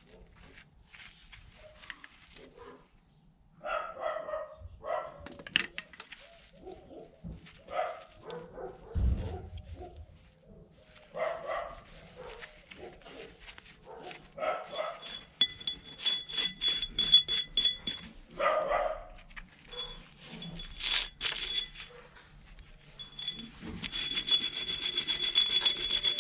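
A dog barking repeatedly, a short bark every second or two. A steel wire brush scrubs rust from the inside of a cast-iron brake drum in rapid rasping strokes with a metallic ring, once in the middle and again steadily near the end.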